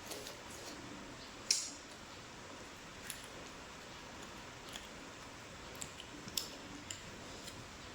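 Eating sounds: a few scattered short clicks and crunches, the loudest about a second and a half in.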